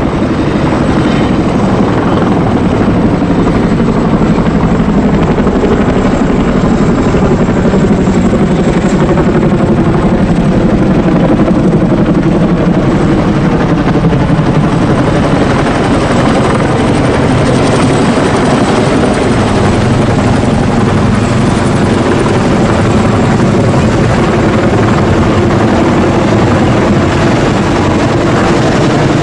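Helicopter rotor and engine noise, loud and steady.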